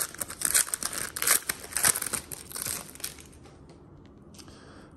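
Foil wrapper of a trading-card pack crinkling and tearing as it is pulled open, dense crackles for about three seconds, then only faint rustles as the cards are drawn out.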